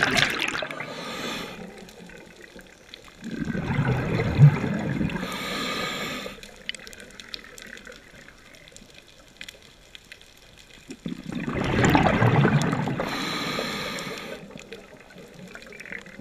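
Scuba regulator breathing underwater: surges of exhaled bubbles with a hissing breath through the regulator, repeating about every eight seconds, quieter between breaths.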